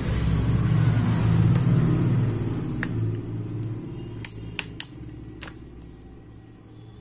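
A steady low engine rumble, loudest in the first three seconds and then fading, with about five sharp clicks around the middle.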